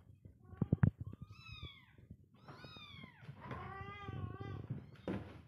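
Kittens meowing: a series of high calls that fall in pitch, some drawn out. A few sharp knocks come about a second in.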